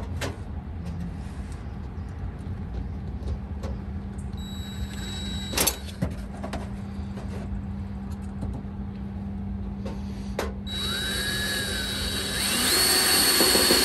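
Cordless drill running from about ten and a half seconds in, its whine stepping up in pitch near the end as it speeds up. Before it there are light handling clicks and a single sharp knock.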